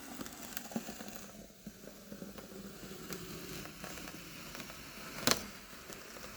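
Faint crackling and small clicks of a sticker being peeled off, with one sharp click about five seconds in.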